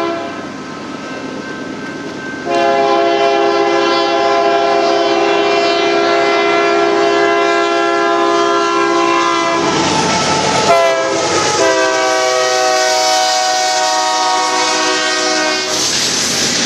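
Union Pacific diesel locomotive horn sounding a chord of several tones as the coal train approaches: faint at first, then a loud long blast of about seven seconds, a short break, and a second long blast of about four seconds. Near the end the horn stops and the loud roar of the passing locomotives and wheels takes over.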